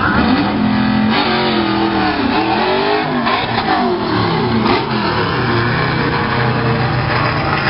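A drag car launching about a second in and accelerating hard down the strip. Its engine revs up through several gear changes, the pitch dropping back at each shift.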